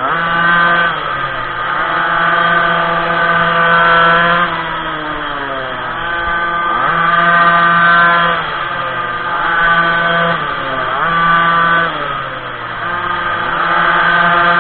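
Minimoto's small two-stroke engine, heard from on board, revving up and holding high revs, then dropping off, about five times in a row as it rides the track.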